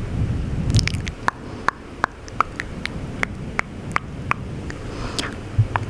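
Close-up ASMR mouth sounds: a string of wet tongue and lip clicks, roughly two or three a second, over a low rumble.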